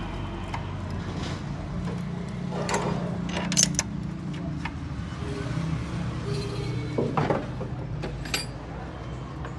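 A steady low hum with scattered short clicks and knocks.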